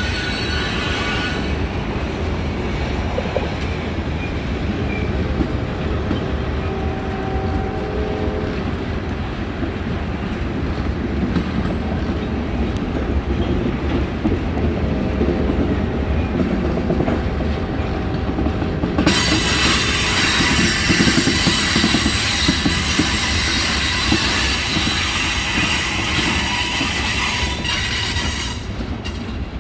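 CSX mixed freight train rolling past: a steady rumble and clatter of freight car wheels on the rails. About two-thirds of the way in, a loud high-pitched screeching hiss from the wheels joins in and stops shortly before the end.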